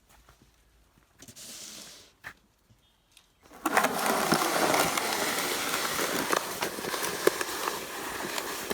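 Snow shovel scraping and pushing heavy, wet slush across pavement, starting abruptly about three and a half seconds in as a loud, continuous gritty scrape with many small clicks and knocks.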